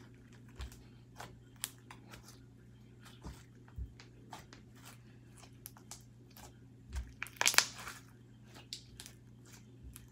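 Light-green slime being kneaded, pressed and stretched by hand, giving scattered small crackles and tearing pops, with a louder crackling burst about seven and a half seconds in. It is a stiff, stretchy slime that she feels may be a little overactivated. A steady low hum runs underneath.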